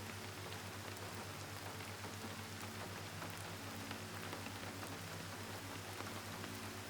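Gentle rain falling steadily, an even hiss with scattered tiny drop ticks. Underneath runs a faint low hum with soft held tones.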